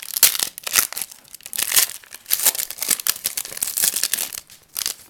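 A football trading-card pack's wrapper being torn open and crinkled by hand: a dense run of crackling that stops shortly before the end.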